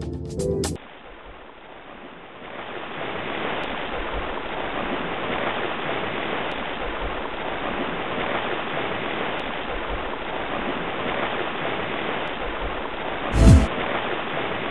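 Television static hiss, an even rush of white noise. It starts about a second in, grows louder a couple of seconds later, and has one short loud thump near the end.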